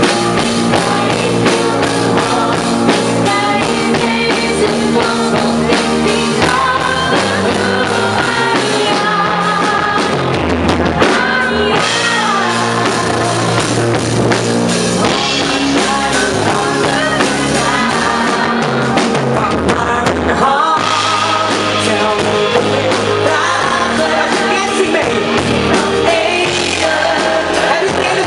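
Live pop-rock band music with drum kit and a singing voice.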